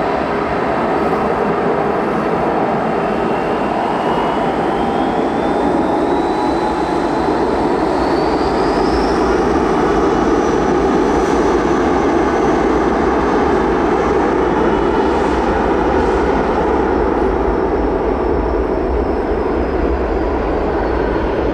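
Jet airliner engines running loud. A high whine climbs in pitch for several seconds and then holds steady, and a deep rumble builds from about halfway through.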